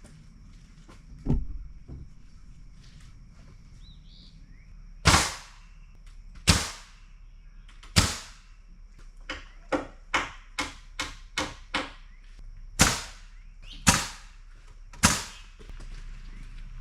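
Nails being driven into wooden deck framing: sharp, loud cracks, first spaced a second or more apart, then a quick run of about eight at roughly three a second, then three more spaced out.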